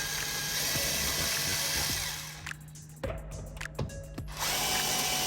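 Cordless drill/driver running steadily while backing out the strike plate screws. It stops a little before halfway, a few clicks follow, and it starts running again near the end.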